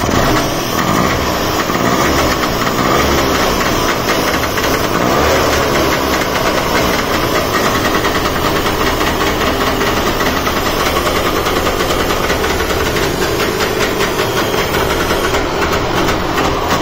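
Trabant 601's two-stroke twin-cylinder engine running steadily on choke, just after a cold start on a freshly fitted carburetor.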